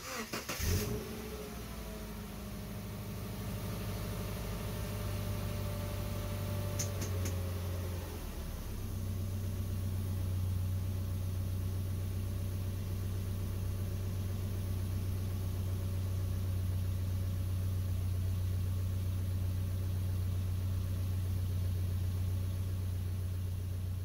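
Subaru Impreza's flat-four engine starting and then idling steadily at the tailpipe, with no misfire pops: the new spark plug wire has cured the misfire.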